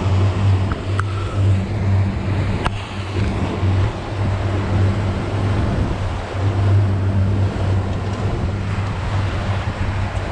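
Boat engine running steadily with a low hum, over the rush of water against the hull and wind on the microphone.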